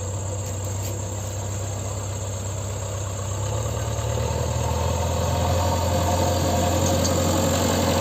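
Diesel engine of a JCB 3DX backhoe loader running steadily, growing louder from about halfway through.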